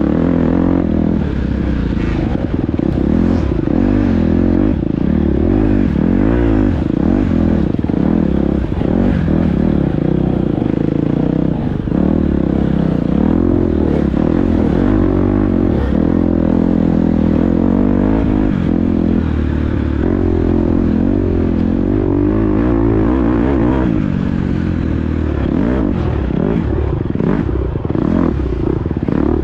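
Dirt bike engine, heard from a camera mounted on the bike, revving up and down over and over as it is ridden hard on a trail, with the chassis clattering over the ground.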